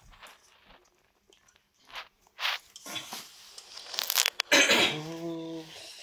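Guinea pigs stirring in their cage: faint clicks, then rough scratchy crunching and rustling bursts. About five seconds in, a low, steady hum-like tone starts.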